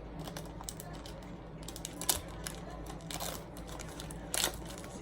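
Snack packaging being handled: light crinkling and rustling with a few short, sharp crackles.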